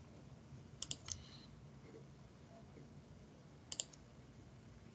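Faint computer mouse clicks: a short cluster about a second in and another near the end, over near-silent room tone.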